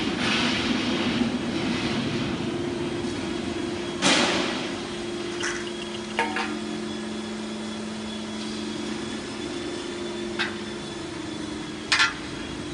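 Steady hum of a hydraulic press brake's pump motor running, broken by several sharp metal clanks, the loudest about four seconds in and a quick double clank near the end.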